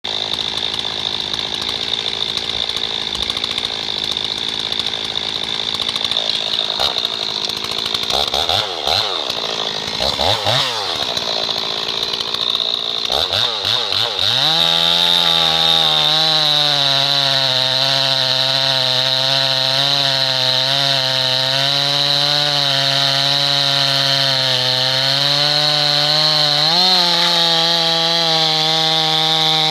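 Stihl 026 two-stroke chainsaw idling at first, revved up and down a few times about eight to thirteen seconds in, then held at full throttle from about fourteen seconds as the chain cuts through a large log, its pitch steady with small dips under load and a brief rise near the end.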